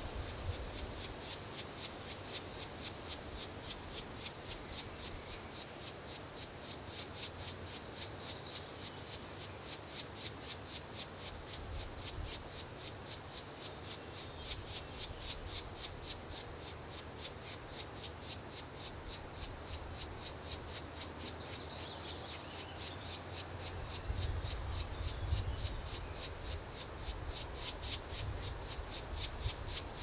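Black woodpecker nestlings begging at the nest hole: a fast, steady run of short, high pulses, many a second. A low rumble underneath grows louder in the last few seconds.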